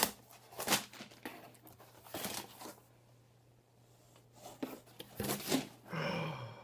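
Cardboard box being torn open by hand: a sharp crack as the taped flap gives way, then irregular rustles, scrapes and tearing of cardboard and tape as the flaps are pulled back.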